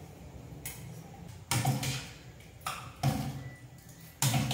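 Steel ladle and spoon knocking against a stainless steel pot: about five sharp metal clanks at uneven intervals as the tempering is tapped out and stirred in.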